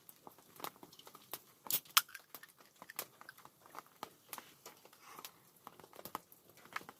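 Wood campfire crackling, with irregular snaps and pops and two louder pops about two seconds in.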